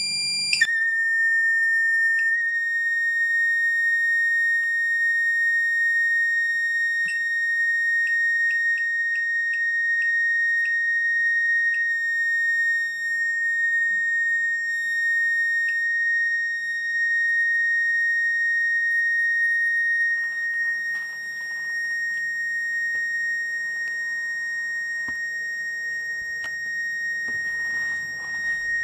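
Bedini self-oscillating motor circuit whining with a steady high-pitched tone. The pitch drops suddenly about half a second in and then holds. A few faint clicks come a few seconds later.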